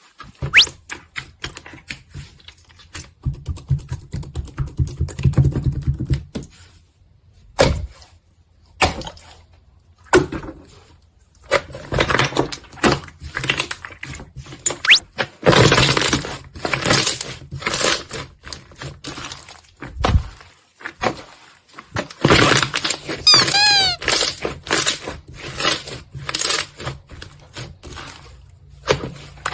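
Slime being squished, poked and pressed by hand: a steady stream of crisp clicks, pops and crunches, with heavier squelching stretches. About two-thirds of the way through, a brief run of squeaky chirps.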